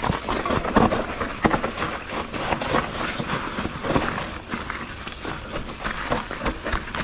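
Mountain bike riding down a wet dirt trail: tyres rolling over mud, roots and leaves, with frequent knocks and rattles from the bike over the bumps.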